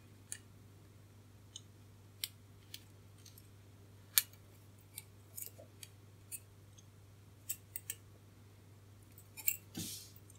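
Scattered small, sharp clicks and ticks of resistor wire leads being pushed through a circuit board and handled, with a brief rustle of paper towel near the end. A steady low hum runs underneath.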